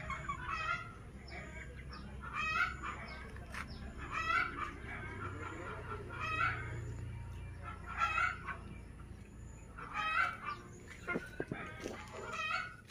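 Young crossbred chickens clucking, short calls repeating every second or two, with a few soft knocks near the end.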